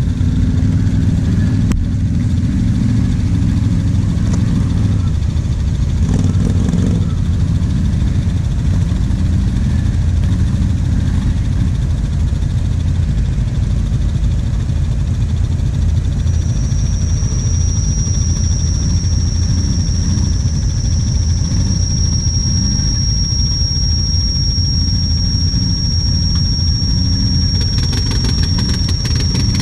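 Quad (ATV) engines running, the nearest one idling steadily. A thin, steady high whistle comes in about halfway through and holds.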